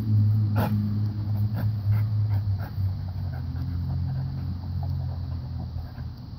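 A large dog gnawing on a log, with a low steady growl and scattered sharp cracks of teeth on wood, the sharpest about half a second in.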